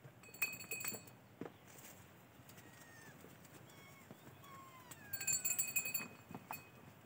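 A small metal bell jingling in two short bursts, one near the start and another about five seconds later. Between them a bird gives several short, falling whistled notes.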